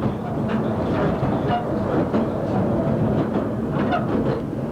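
Narrow gauge train running on the line: a steady rumble with scattered short knocks.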